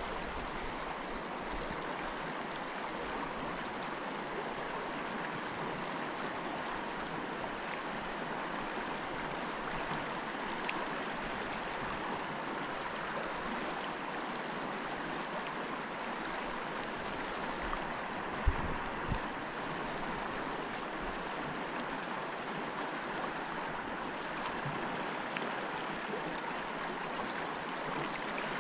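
River current running over a rocky riffle: a steady rushing hiss of moving water, with one brief knock about two-thirds of the way through.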